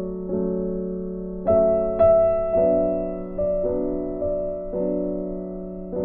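Background piano music: slow, gentle notes and chords, a new one struck about once a second and left to fade.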